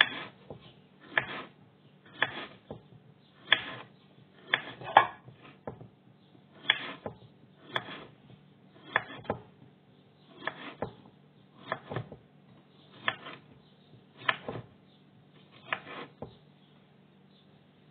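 Kitchen knife slicing a zucchini into rounds on a wooden chopping board: a sharp tap of the blade reaching the board about once a second, each with a short crunch through the flesh. The cutting stops shortly before the end.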